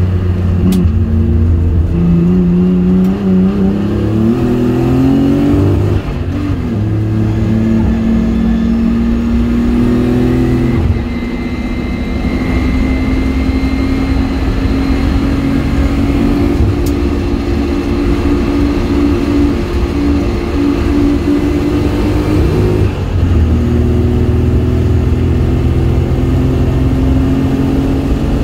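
Nissan 300ZX engine heard from inside the cabin while the car is driven at speed on a circuit. The revs climb steadily through each gear and fall sharply at a few gear changes or lifts off the throttle.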